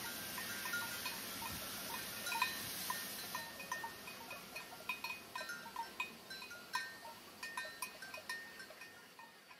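Many small bells clinking irregularly, as on grazing livestock, with a steady high hiss over the first three seconds or so; the sound fades gradually toward the end.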